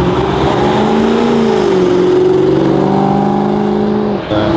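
Car engine accelerating hard: its pitch climbs, drops at a gear change about a second and a half in, then climbs again, and cuts off abruptly near the end.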